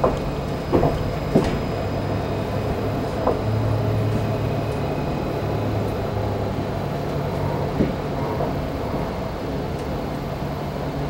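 Cabin noise inside an Alstom Citadis 302 tram on the move: a steady low hum, with a handful of short clunks, most in the first four seconds and one more about eight seconds in.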